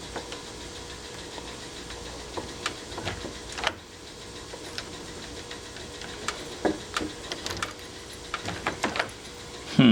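Scattered clicks and light knocks of a Kwikset Kevo smart deadbolt and door hardware being worked as the lock is tested, over a faint steady hum that stops about four seconds in. A louder sudden sound comes at the very end.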